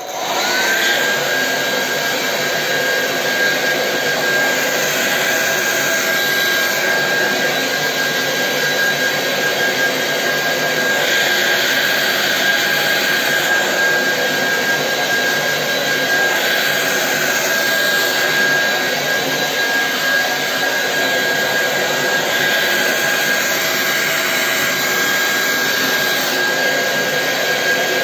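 Handheld electric hair dryer switched on, its motor whine rising to a steady high pitch within the first second, then running steadily with a loud rush of blown air as it dries a beard.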